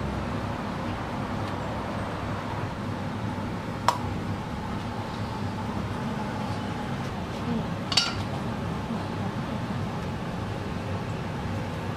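Two sharp clinks of tableware, about four seconds apart, over a steady background hum.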